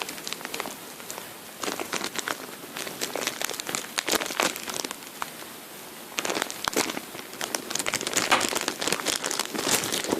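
Plastic packaging crinkling in irregular bursts as it is handled, with a squishy toy inside.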